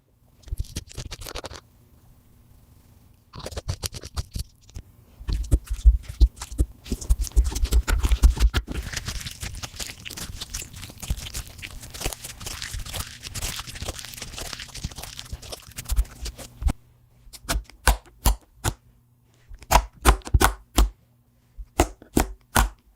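Slime being mixed with red lipstick, giving dense sticky crackling and clicking, then, in the last several seconds, separate wet pops.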